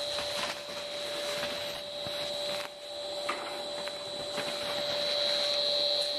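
Motorized tube-tow line running: a steady machine hum with a high whine over a rushing noise, as snow tubes are pulled uphill on the tow rope.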